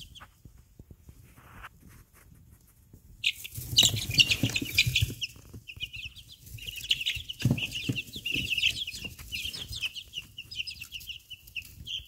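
A brood of young, half-feathered chicks cheeping rapidly together, starting about three seconds in after a faint stretch and carrying on to the end. A few dull thumps are mixed in, the loudest around four to five seconds in.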